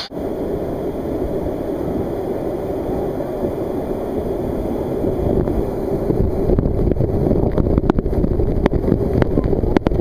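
Waterfall pouring down at close range: a loud, steady, muffled low rumble with the high end gone, and from about six seconds in, sharp clicks of water striking the microphone.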